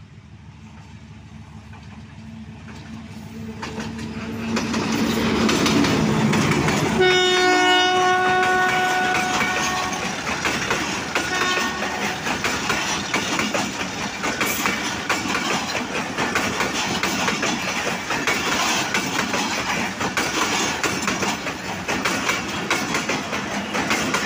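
A diesel-hauled passenger train passing close by: the locomotive's engine grows louder as it approaches and passes, and its horn sounds one long blast of about two and a half seconds, then a short second one. The coaches follow with a steady rolling roar full of rapid wheel clicks over the rail joints.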